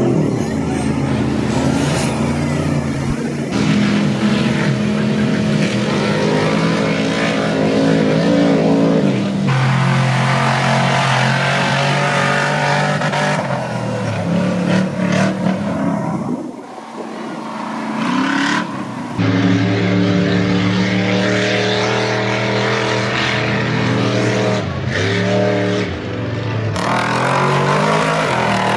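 Big-tyred mud trucks running at high revs through mud, their engines revving up and falling back again and again. The first is a lifted diesel pickup blowing black smoke under throttle. The sound jumps from one truck to the next several times.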